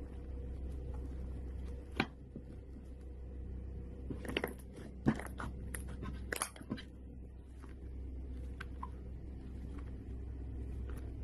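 Slime being squeezed and pressed by hand, with a sharp click about two seconds in and a cluster of crackles and pops in the middle, over a steady low hum.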